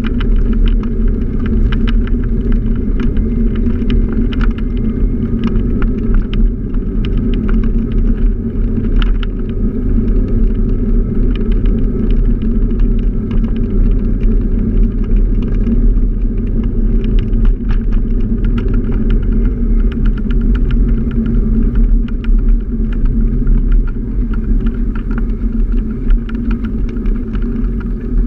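Motor scooter running steadily while riding along a street, with a continuous low rumble and scattered light rattles.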